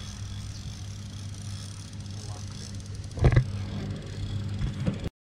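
A steady low mechanical hum, with a short loud thump a little over three seconds in. The sound cuts off abruptly near the end.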